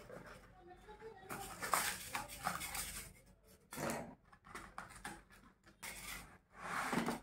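A small cardboard product box being opened and handled: irregular rustling and scraping in several short bouts.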